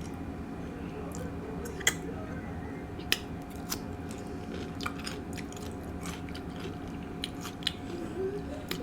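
A person chewing food close to the microphone, with scattered sharp crunches and wet mouth clicks. The two loudest crunches come about two and three seconds in.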